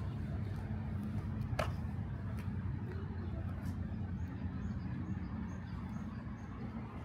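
Steady low hum of motor-vehicle engines from road traffic, with one sharp click about a second and a half in.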